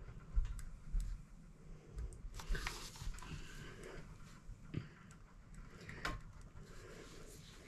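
Pen writing quickly on workbook paper: scattered small taps and scratches, with a longer rustle about two and a half seconds in and a few soft knocks on the wooden table.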